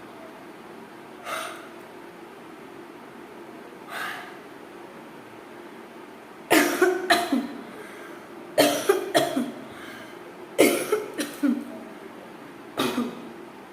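A person coughing deliberately in repeated fits: two soft sounds in the first few seconds, then four loud bouts of several coughs each, about two seconds apart, in the second half.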